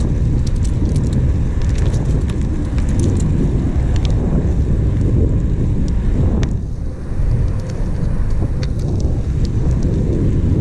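Wind buffeting the microphone of a camera on a moving road bike, a steady low rumble mixed with tyre noise on asphalt and a few scattered small ticks; it eases briefly about six and a half seconds in.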